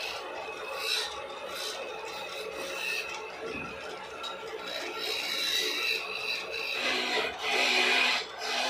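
A steel turning chisel scraping and shaving a wooden handle: a continuous rough rasping scrape of wood being cut, loudest near the end.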